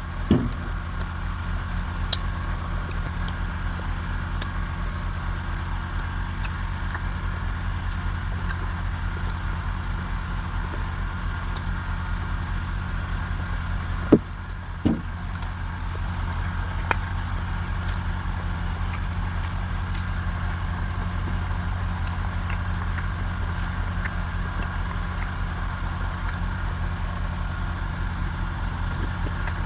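A steady low mechanical drone, like an engine running, with a few faint clicks and two sharp knocks about halfway through.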